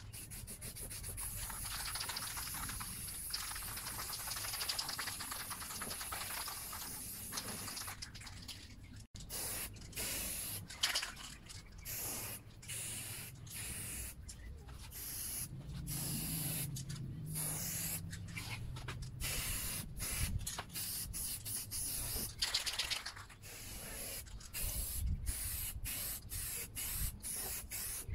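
Aerosol spray paint can hissing as paint is sprayed: one long continuous spray, then many short bursts with brief pauses from about nine seconds in.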